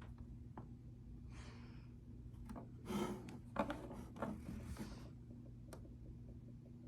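Rubbing and scraping for about two and a half seconds in the middle, with a few light clicks, over a steady low hum.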